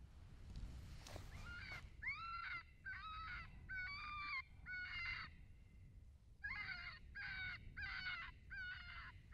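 Two runs of short, harsh, caw-like calls, each about half a second long with a bending pitch. About five come, a pause of about a second follows, then a second run of about five more.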